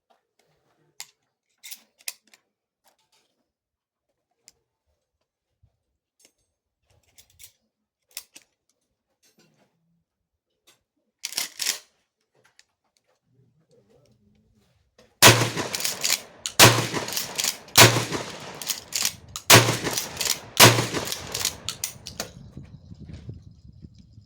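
20-gauge Remington 870 pump-action shotgun: scattered small handling clicks, then five loud shots fired in quick succession, about one to two seconds apart, with the pump being worked between shots.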